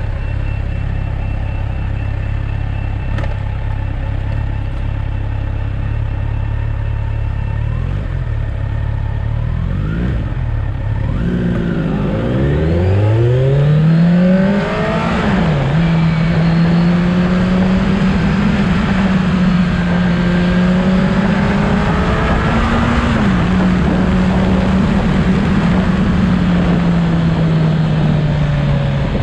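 Motorcycle engine idling at first, then revving up as the bike pulls away and accelerates. The note drops sharply at a gear change and then holds a fairly steady pitch as the bike cruises.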